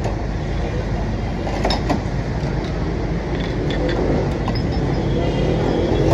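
Steady rumble of street traffic and engines, with a few sharp clinks of glass soda bottles against glasses as lemon soda is poured, about two seconds in and again past the middle.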